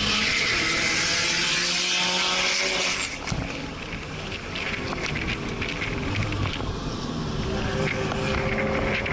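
Porsche flat-six engine heard from inside the cabin, revving up under hard acceleration over loud wind and road noise; about three seconds in the revs and loudness drop suddenly as the driver lifts off. It then runs at lower revs with scattered clicks and knocks, and the revs climb again near the end.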